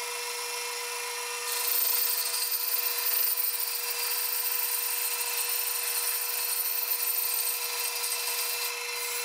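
Band saw running steadily, its blade resawing a thin slice off a board. The cutting noise comes in about one and a half seconds in and eases back near the end.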